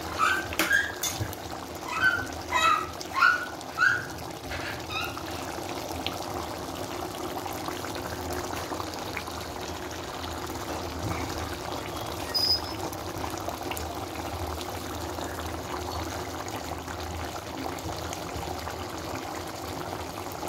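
Thick chicken and spinach curry bubbling steadily as it simmers in a pot. There are several short high chirps in the first few seconds.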